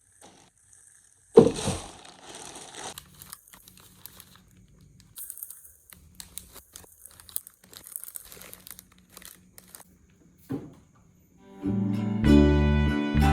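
A sudden thump followed by crinkling and rustling, like something being handled, with another brief thump later on. Near the end, plucked acoustic guitar music comes in.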